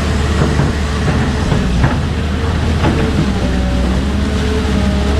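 Kobelco SK250LC excavator's diesel engine running steadily, with a couple of sharp knocks about two and three seconds in.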